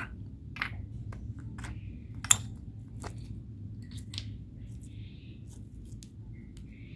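Homemade slime being worked by hand, giving scattered sticky clicks and small pops, with one sharper pop about two seconds in. A steady low hum runs underneath.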